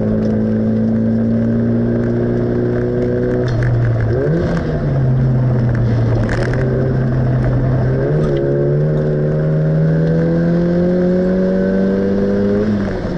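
In-car sound of a racing car's engine lapping a circuit: revs held steady through a corner, a brief jump and drop in revs about four seconds in, then revs climbing steadily under acceleration for the last five seconds, with a gearchange dropping the pitch right at the end. A few light rattles from the cabin.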